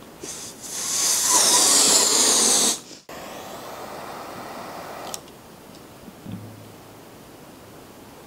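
A person blowing a long breath of air into a latex balloon, the hiss building over about two seconds and cutting off sharply near three seconds in. A quieter steady hiss and a single click follow.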